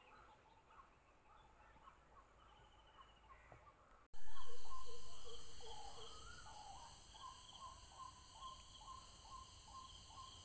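Birds and insects calling: faint repeated chirps at first, then about four seconds in an abrupt cut to a louder recording of insects trilling in steady pulses over a bird repeating a short note, which slowly fades down.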